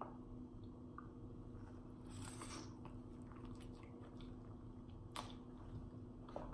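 A person biting into and chewing a saucy bone-in chicken wing close to the microphone, quiet wet chewing with a few short crunches about two and five seconds in, over a faint steady hum.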